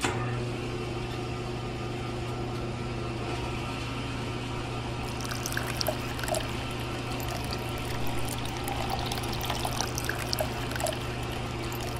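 Small electric water pump running with a steady motor hum while water pours. From about five seconds in, splashes and drips join it. It starts and stops abruptly.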